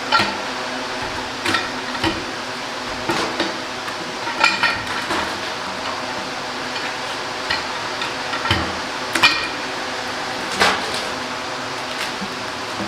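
Wood-Mizer LX55 band sawmill running steadily on its first test run, with irregular sharp metallic clanks and rattles over the hum.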